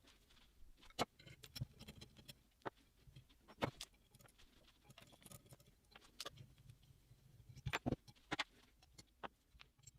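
Scattered light clicks and taps of metal engine parts and tools being handled on a workbench, irregular, with two louder knocks about a third of the way in and again near the end.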